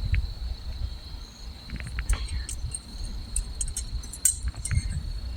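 Crickets chirping in a steady high-pitched chorus, over an uneven low rumble and scattered faint clicks.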